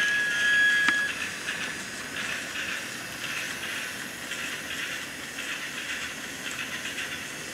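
Battery-powered BRIO toy train running on its track: a small electric motor and gears whirring, with the wheels rattling and clicking over the track joints. A steady whine at the start cuts off with a click about a second in.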